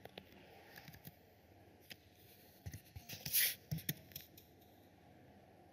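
Computer keyboard keys clicking as a short command is typed: a faint scatter of separate keystrokes, bunched together in the second half, with one louder click about three and a half seconds in.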